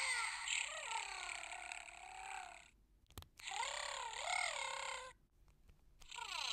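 Furby Furblet toys purring through their small speakers as they are stroked: three electronic purrs, each a second and a half to nearly three seconds long, with a wavering, gargling pitch.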